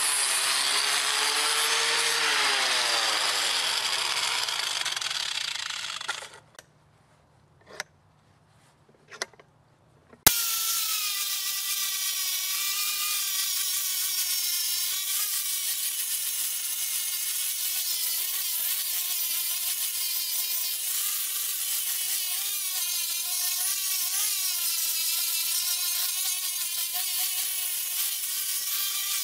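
An angle grinder with a sanding disc sands the wooden chopping block. It runs loud with a falling whine, stops about six seconds in, and a few faint knocks follow. About ten seconds in it starts again abruptly and runs on, its whine wavering as it works the wood.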